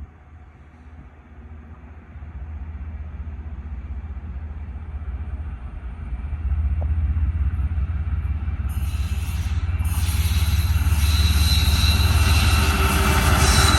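BNSF diesel locomotives approaching on the mainline. A low engine rumble grows steadily louder, and about nine seconds in a hiss with thin high tones from the wheels on the rails joins it as the train draws near.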